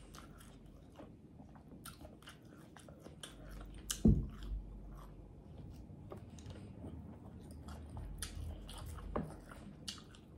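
Close-up eating sounds of a fried pork chop: the crispy coating crackling as it is torn and bitten, with chewing and lip smacking. One louder knock about four seconds in.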